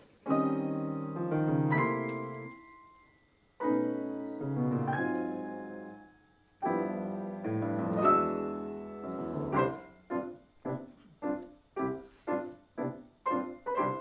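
Grand piano played four hands as a duet: three chordal phrases, each struck and left to ring and fade, then about two-thirds of the way through a run of short detached chords at about two a second.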